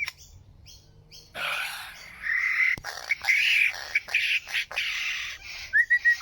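A bird calling: after a brief pause, a run of harsh, raspy chattering calls, then a short whistled note near the end.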